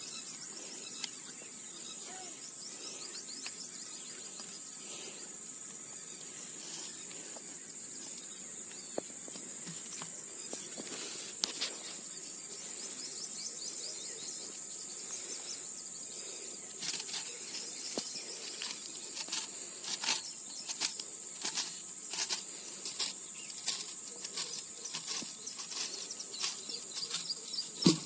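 Steady high-pitched drone of insects, crickets or similar, in a rural outdoor setting. From about the middle on it is broken by many irregular sharp clicks and taps, with one louder knock near the end.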